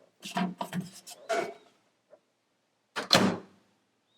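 Kitchen handling sounds as the noodles go into a microwave: a couple of light clunks of a bowl being set down, then a louder clunk about three seconds in, like the microwave door shutting.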